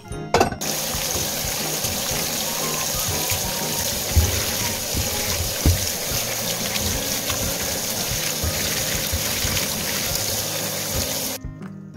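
Cold tap water running hard onto udon noodles in a stainless steel mesh strainer in a sink as they are rubbed and rinsed by hand. The water comes on about half a second in and stops abruptly shortly before the end, over soft background music.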